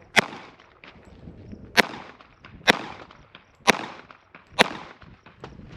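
Five pistol shots fired at an uneven pace, roughly one a second, each a sharp crack with a short echo.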